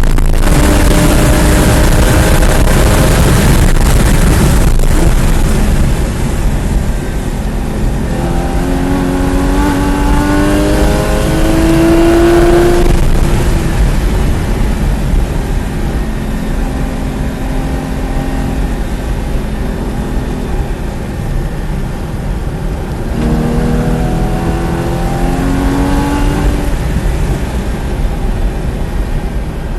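Porsche 981 Cayman GT4's 3.8-litre flat-six engine driven hard around a track lap. It is loudest and steady for about the first six seconds, then its pitch climbs under acceleration twice, dropping in between as it comes off the throttle or shifts.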